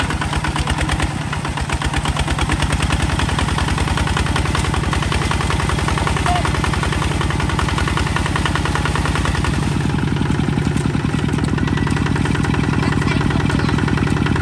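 Kubota ZT155 DI walking tractor's single-cylinder diesel engine running steadily with an even, rapid beat of firing strokes. Its low note grows a little fuller about two-thirds of the way through.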